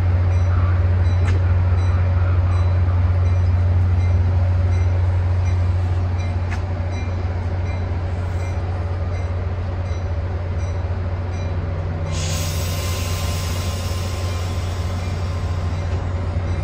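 Metra commuter train with its diesel locomotive running, a steady low hum. A high hiss or squeal starts suddenly about twelve seconds in and holds.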